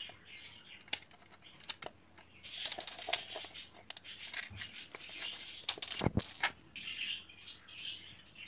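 Small plastic Lego bricks clicking and tapping on a wooden tabletop as they are picked up and pressed on, with brief rustles of paper from the instruction booklet.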